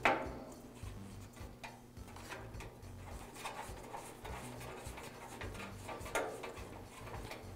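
Quiet handling sounds of a retaining ring being fitted onto a gas grill's igniter module in its stainless steel front panel: a few light clicks and scrapes.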